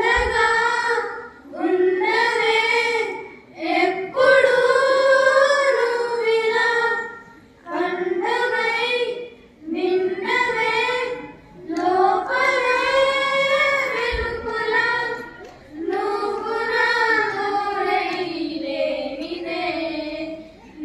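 A group of girls singing together unaccompanied through a microphone, in phrases of a few seconds with short pauses for breath between them.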